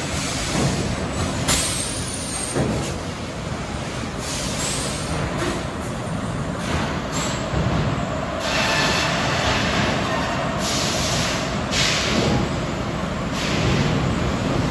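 Sawmill log-handling machinery running: a steady industrial din with repeated rushes of hiss and a couple of short high squeals.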